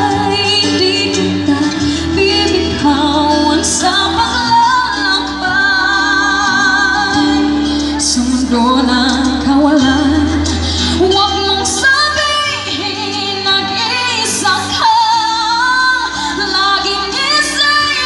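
A woman singing into a microphone through a sound system over instrumental accompaniment, with vibrato on her held notes.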